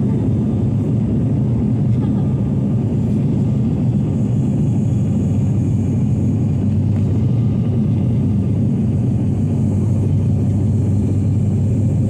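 Steady drone of an airliner's engines and rushing air, heard inside the passenger cabin in flight, with a low even hum.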